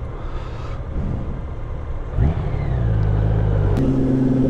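Motorcycle riding sound: engine and road/wind rumble. About two seconds in, the engine revs up and holds a steady note, which steps up in pitch near the end.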